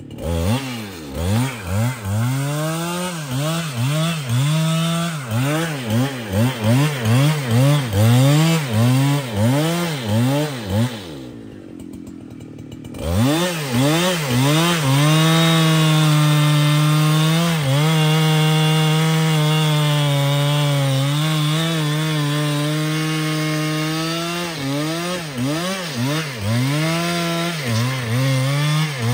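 Large Husqvarna two-stroke chainsaw revving up and down about twice a second, then dropping to a low idle for a moment. It then runs at steady high revs for several seconds as it cuts through the wood, and goes back to pulsing revs near the end.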